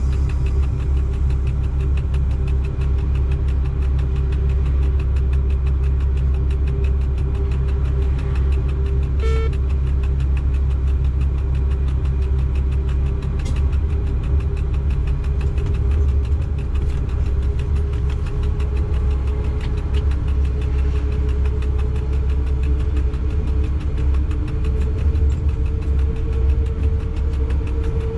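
Steady low rumble inside a freight locomotive's cab on the move, with a tone that climbs slowly in pitch, and a brief beep about nine seconds in.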